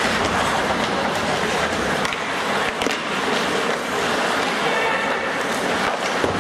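Ice hockey play on the rink: skates scraping on the ice, with a few sharp clacks from sticks and puck.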